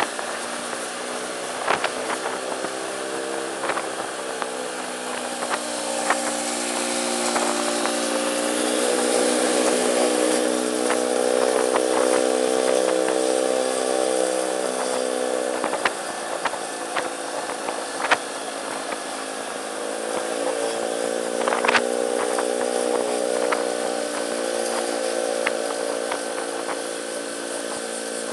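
Motor scooter engine running under way, its note rising and easing off a few times with the throttle, with scattered sharp clicks.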